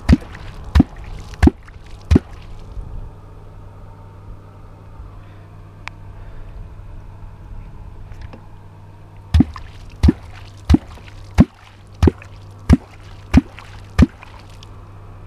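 A catfish kwok (Perm kwok) struck into the water in a steady rhythm, giving deep hollow 'kwok' plops meant to draw catfish up from the bottom. Four strokes come in the first two seconds, then after a pause of about seven seconds a run of eight more, about three every two seconds.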